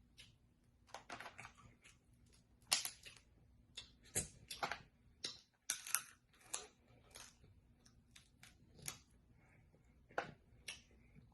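Snow crab leg shells being cracked and snapped apart by hand: a series of irregular sharp cracks and crunches.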